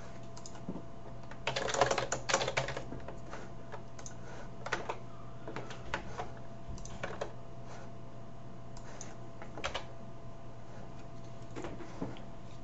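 Computer keyboard typing: a quick burst of keystrokes about two seconds in, then scattered single clicks. A faint steady hum runs underneath.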